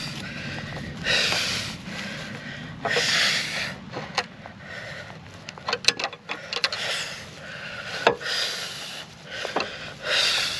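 A rubber exhaust hanger being worked off its metal hanger rod with a screwdriver: repeated rubbing and scraping strokes every second or two, with a few sharp metal clicks about six seconds in.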